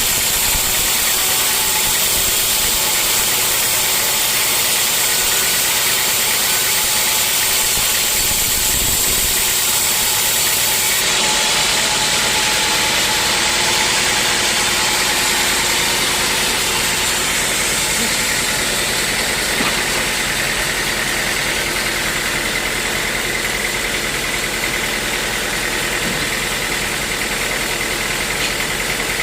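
Sawmill machinery running steadily, a constant loud mechanical noise, with a change in tone about eleven seconds in.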